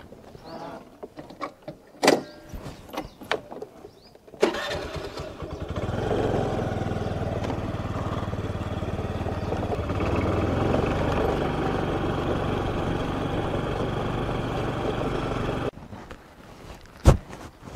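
A motor vehicle's engine starts about four seconds in and runs steadily for about ten seconds, then cuts off abruptly. Scattered clicks come before it and a single sharp click comes near the end.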